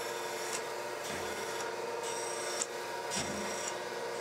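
Thompson surface grinder running wet, its wheel taking a light spark-out pass (no downfeed) across a belt grinder platen as the table reciprocates. A steady machine hum with a grinding hiss that swells and fades with the table strokes; the wheel is still cutting lightly.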